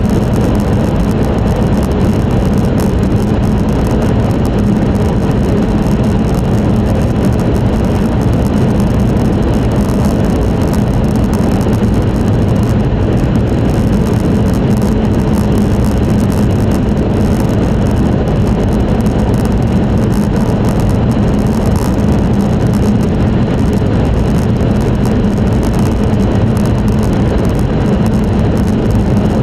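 Steady interior running noise of an E5 series Shinkansen travelling at speed, heard inside the passenger cabin: an even, unbroken drone with a low hum underneath.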